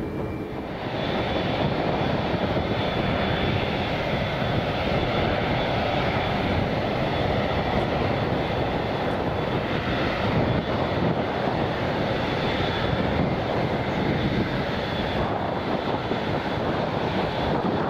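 Boeing 787-8 airliner's jet engines at high power on departure: a steady rushing noise with a faint high whine, growing louder about a second in and then holding.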